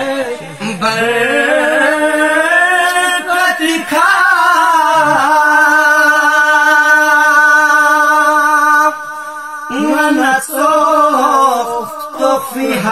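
Men singing a Balti qasida unaccompanied, a devotional chant with long held notes that bend and waver in pitch. The singing dips briefly about nine seconds in, then resumes.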